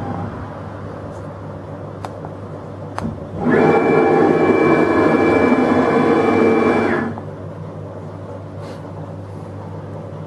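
SM6090 CNC router's Y axis jogging at speed from the handheld controller: a steady motor whine with fixed tones starts about three and a half seconds in and stops abruptly about three and a half seconds later. A couple of sharp clicks come before it, over a low steady hum.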